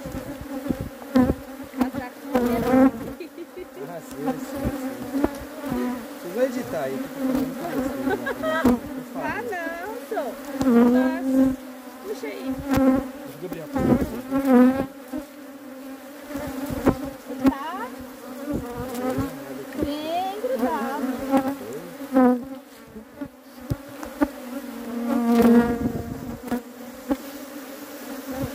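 Swarm of honey bees buzzing in a steady drone around an open hive, with single bees flying close past and their pitch rising and falling. Occasional sharp knocks sound over the buzzing.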